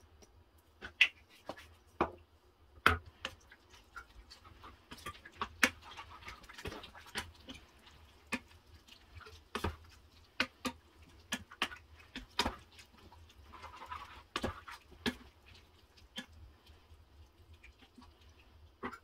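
Wooden spoon stirring a thick sauce in a stainless steel saucepan, knocking and scraping against the pan's side and bottom in irregular strokes, over a low steady hum.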